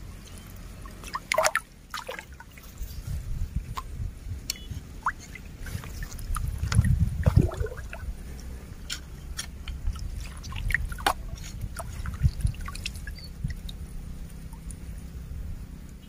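A hand landing net sloshes and splashes through shallow muddy river water, with scattered drips and trickles, under a steady low rumble. The biggest slosh comes about seven seconds in.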